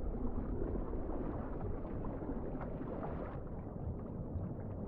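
Steady low rushing and rumbling of water heard underwater, with faint scattered crackles, around a feeding whale shark.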